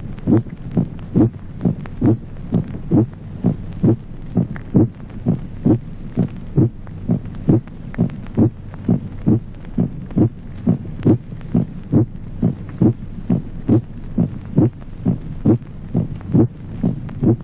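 Auscultated heartbeat: a steady, regular rhythm of first and second heart sounds. The second sound has a resonant, musical timbre, the aortic second sound as heard in an aneurysm of the aorta.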